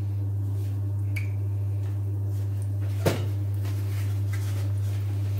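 A steady low electrical hum, with a faint sizzle of egg-battered bread rounds frying in a small saucepan of oil. One sharp click about three seconds in.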